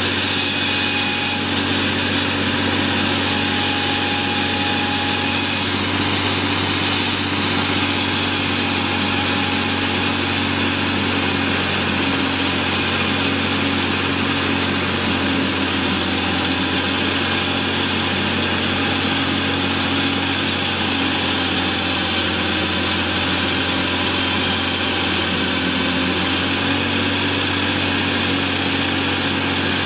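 Diesel engine of a walk-behind concrete saw running steadily, with a bright, even hiss over the engine note.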